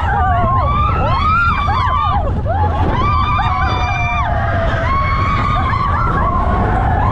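Several voices yelling and screaming at once, with long held cries and rising-and-falling shouts overlapping, over a steady low rumble.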